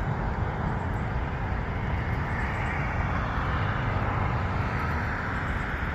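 Steady outdoor noise of road traffic with wind on the microphone; no distinct sound of the approaching train stands out.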